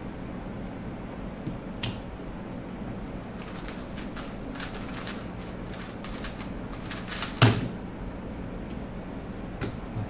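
A Moyu Weilong WR M 2021 3x3 speedcube being turned very fast: a dense run of rapid clicking from its layers for about four seconds. The run ends with one loud thump as the hands slap down on the speed timer to stop it. A low steady hum sits underneath.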